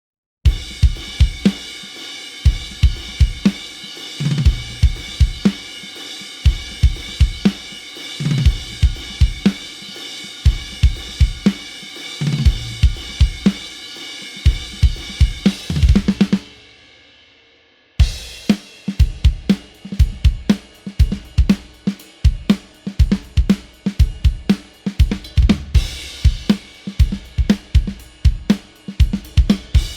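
Sampled pop-punk acoustic drum kit from the EZdrummer 3 Pop Punk EZX library playing a rock beat. Kick and snare hits sit under a sustained cymbal wash, and the beat ends in a fill about sixteen seconds in. After a brief gap, a second, busier groove with quick cymbal strokes starts.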